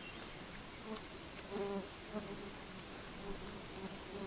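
Flying insects buzzing close by in short passes, over a steady background hiss, with a few faint clicks.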